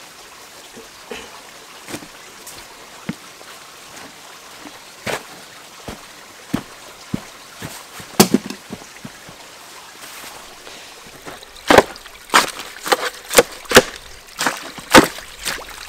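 A spade chopping repeatedly into sticky clay backfill behind a timber sleeper, packing it to waterproof a small weir: scattered soft knocks at first, then a run of about eight sharp strikes roughly two a second in the last four seconds. A small stream trickles steadily underneath.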